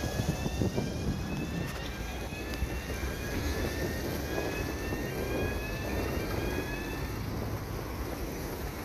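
Docked passenger ferry's engine running: a steady low rumble with a faint high whine that glides upward again and again, about once a second.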